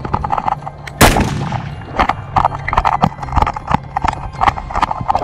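A single loud gunshot about a second in, with a long echoing tail, over a quick, uneven clatter.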